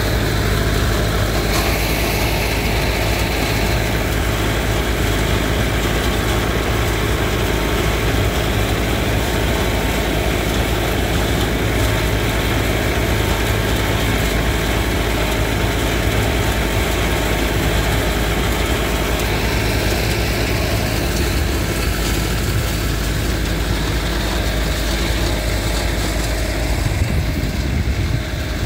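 An engine idling steadily, a continuous low rumble.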